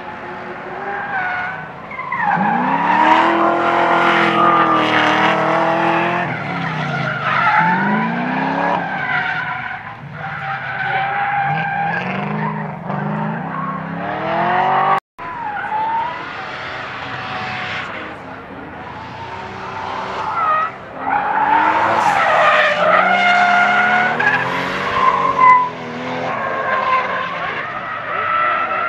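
Drift cars sliding through a corner, engines revving hard up and down with tyres squealing and skidding. The sound cuts out for an instant about halfway through.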